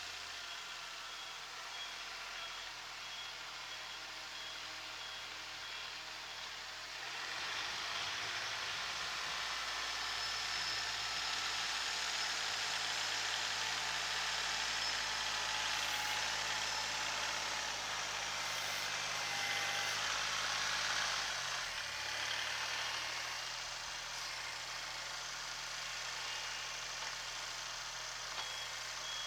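Kubota SL28H tractor's diesel engine running while it works a front loader. It rises in level and load about seven seconds in and settles back about twenty-two seconds in. A reversing buzzer beeps at the start and again near the end.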